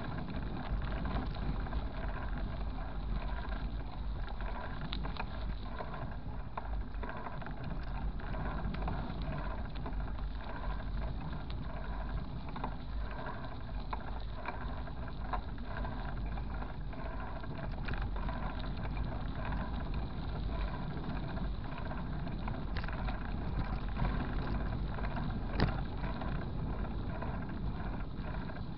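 Steady low rumble of wind buffeting the microphone outdoors, with a few faint clicks.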